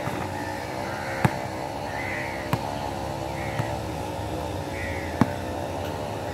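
A basketball bouncing on an outdoor concrete court: four separate sharp bounces, the loudest about a second in and another near the end. Under them runs a steady machine-like drone.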